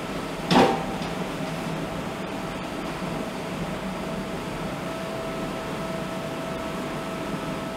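Steady hum of shipboard waste-processing machinery with a constant whine, and a single sharp knock about half a second in.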